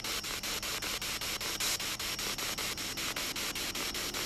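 SB7 spirit box sweeping through radio stations: a steady hiss of radio static chopped into rapid, even pulses, about six a second.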